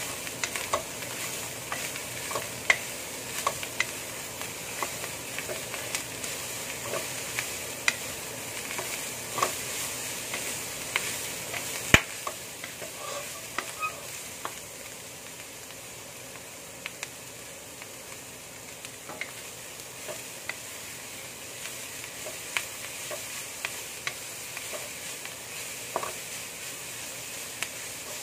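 Bean sprouts and julienned carrots sizzling in a wok, stirred with a wooden spatula that scrapes and taps against the pan. There is one sharper knock about twelve seconds in.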